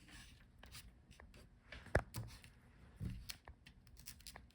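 Light handling noises of a laptop's video cable and plastic display back cover: small scattered clicks and rustles, with one sharp click about two seconds in and a soft knock about a second later.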